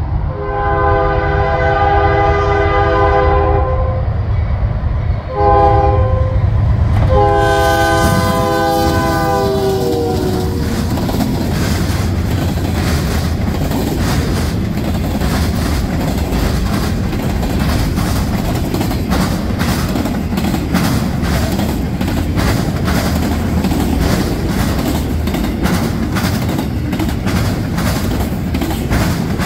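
Freight locomotive's air horn sounding a multi-note chord: a long blast, a short one and another long one whose pitch drops as the locomotive passes. Then the freight cars run by at high speed with a fast, dense clatter of wheels hitting the rail diamond hard.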